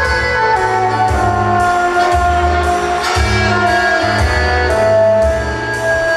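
Saxophone playing a slow melody of long held notes over a backing track with a bass line and a steady beat.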